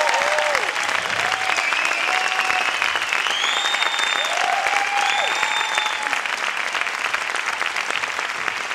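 Theatre audience applauding steadily, with cheering whoops rising and falling over the clapping for the first six seconds or so.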